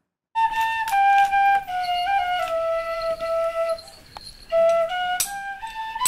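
Music: a single wind-instrument melody of slow held notes that step downward, break off briefly about two-thirds of the way through, then climb again.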